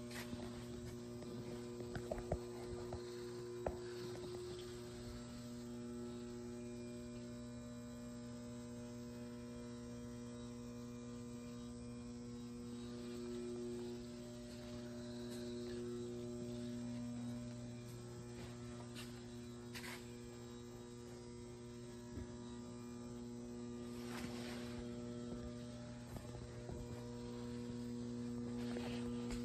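Steady electrical mains hum made of several low tones, with a few faint clicks scattered through it.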